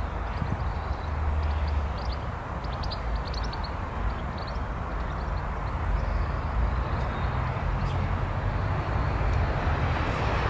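Steady outdoor background rumble and hiss, with a few faint short high chirps about three seconds in.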